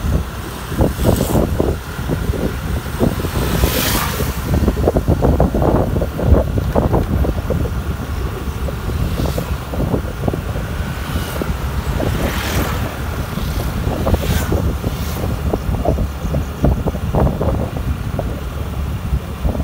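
Wind buffeting the microphone on a moving Honda Activa scooter: a heavy, fluttering rumble over the scooter's running engine and tyre noise, with a few brief sharper rushes.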